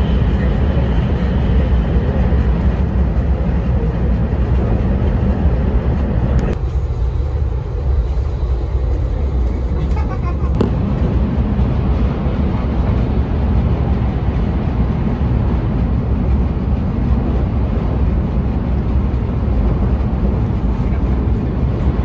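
Tohoku Shinkansen train running at about 300 km/h, heard from inside the cabin: a loud, steady low rumble and rush of wheels and air. From about six and a half seconds in the sound thins for a few seconds, ending with a click.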